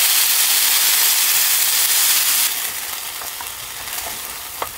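Gnocchi and kabocha pumpkin sizzling in oil in a pan. The sizzle quietens about halfway through as a pumpkin cream sauce is poured in, and a wooden spoon stirring gives a few light knocks near the end.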